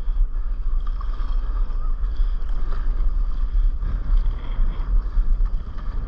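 Steady low wind rumble buffeting a microphone at water level, over the wash of sea water around a stand-up paddleboard.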